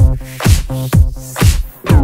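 Background electronic dance-style music with a steady beat, about two beats a second, over sustained low notes.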